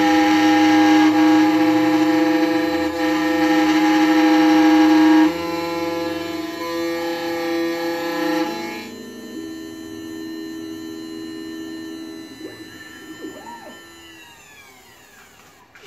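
Electronic key-cutting machine's cutter motor running with a steady multi-tone whine while it mills a laser-cut (track-style) 2008 Honda Accord key blank. The whine steps down about five seconds in and again near nine seconds, then falls in pitch and fades near the end as the spindle spins down at the end of the cut.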